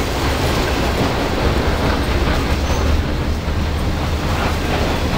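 Intermodal freight train of trailers on flatcars rolling past: a loud, steady rumble and rattle of the cars' wheels on the rails.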